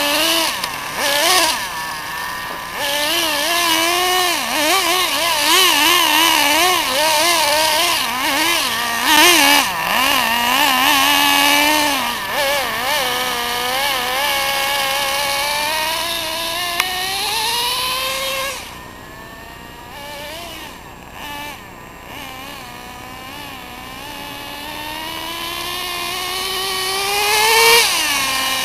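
Nitro RC buggy's small two-stroke glow engine revving hard: a high, buzzing note that wobbles rapidly up and down with throttle blips for the first dozen seconds, then climbs steadily in pitch. It drops quieter for a few seconds past the middle, then rises again to a peak near the end and falls off.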